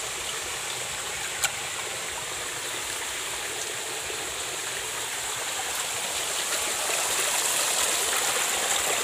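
Shallow stream water running over rocks, a steady rush that grows a little louder after about six seconds. A single sharp click about one and a half seconds in.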